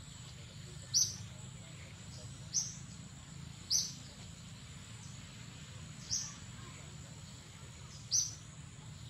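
A bird giving short, sharp, high chirps, each dropping in pitch, five times about one to two seconds apart, over a faint steady high-pitched whine.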